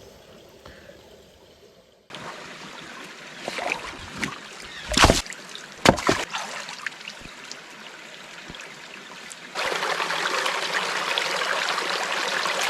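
Brook water running over rocks, with two or three sharp knocks near the middle; about ten seconds in the water sound suddenly gets much louder.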